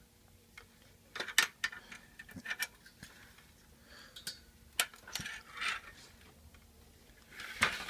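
Irregular sharp metallic clicks and taps of a hand tool working at the pins that hold the dial of an antique English tall clock's movement, with some handling noise and a louder clatter near the end.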